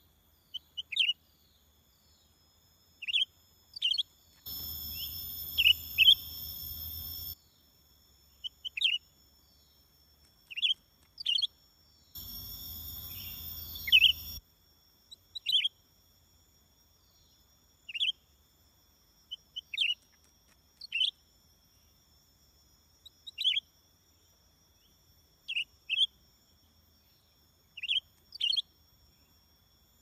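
Caged leafbird (cucak ijo) kept as a trapping decoy, calling with short, sharp chirps, often in twos, every second or two. Twice a steady noise runs under the calls for two to three seconds.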